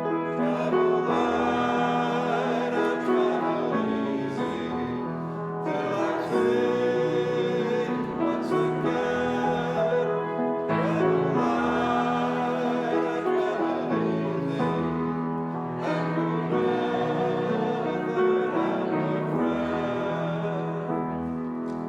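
A congregation singing a hymn together with instrumental accompaniment, in long held phrases with short breaks between them.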